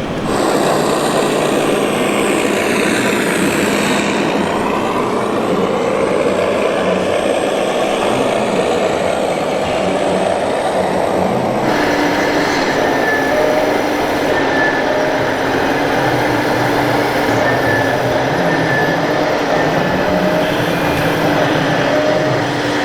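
Truck engine sounds from scale RC model trucks, over a steady dense noise, with the sound changing abruptly twice.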